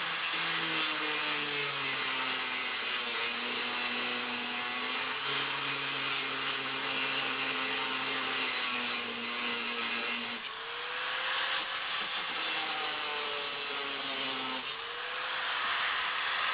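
Angle grinder with a grinding wheel cutting through the hardened steel crossbar of a Kryptonite U-lock, grinding steadily. The motor's pitch shifts under load, dipping and climbing back twice in the second half.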